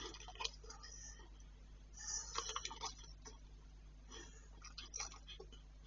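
Cane corso's mouth working with its head down on the bedding: three bursts of quick wet clicking and smacking, like licking.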